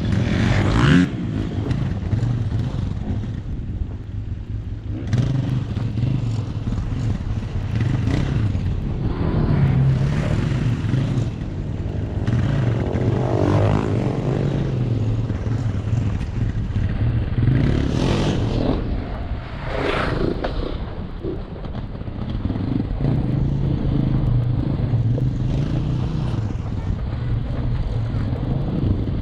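Tesla Model 3 Performance rolling down a rocky dirt trail: tyres crunching over gravel and stones over a steady low rumble, with no engine note. Two sharper scrapes stand out about two-thirds of the way through.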